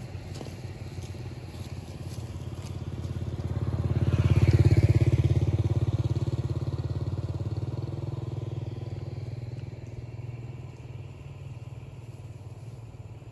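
A motor vehicle passing on the road beside the grass. Its engine grows louder over the first few seconds, is loudest about four to five seconds in, then slowly fades to a low steady hum.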